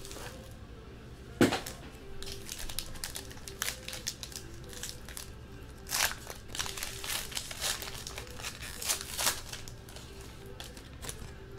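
Foil wrapper of a trading-card pack crinkling and tearing as it is handled and opened by hand, in irregular crackles with the sharpest one about a second and a half in. Quiet music plays underneath.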